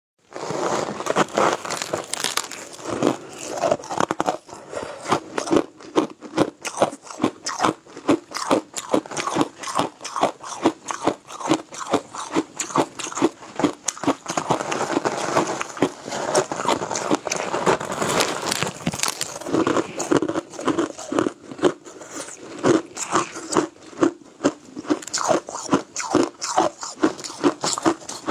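Biting and crunching into a frosty lump of crushed ice, heard close up: a dense run of sharp, crackling crunches, several a second, with chewing between bites.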